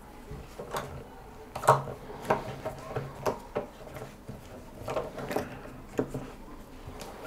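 Hand polishing of a kitchen knife blade with a rag charged with olive oil and white polishing paste: light, irregular knocks and rubbing noises as the blade and rag are worked over the surface, about a dozen small knocks spread through.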